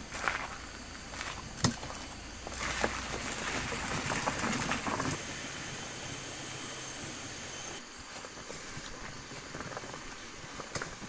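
A couple of sharp knocks as a folding camping wagon is loaded, then its wheels rolling and crunching over a gravel path for a few seconds, followed by a steadier outdoor hiss.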